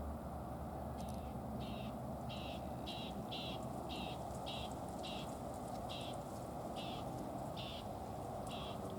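American crow calling: a rapid, regular series of about a dozen short calls, starting about a second in, over a steady background rumble.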